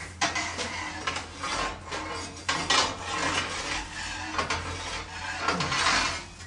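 A long metal poker scraping, rubbing and knocking against the brick floor of a wood-fired bake oven as the burning wood is raked and stoked while the oven heats up. The scraping comes in irregular strokes, loudest a little under halfway through and again near the end.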